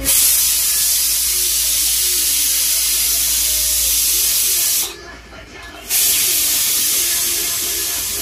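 Aluminium pressure cooker letting out steam in a loud, steady hiss, releasing its pressure once the khichuri is cooked. The hiss starts suddenly, stops for about a second midway, then comes back and slowly eases off.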